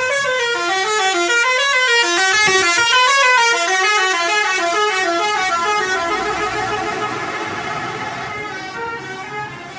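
Basuri telolet multi-tone horn on a tour bus playing a quick melody. Several notes sound together and step up and down in pitch. It starts suddenly and grows fainter over the last few seconds.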